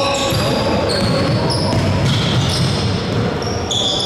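Basketball game on a gym court: ball dribbling on the floor, with short high squeaks of sneakers on the hardwood coming several times a second and players' voices underneath.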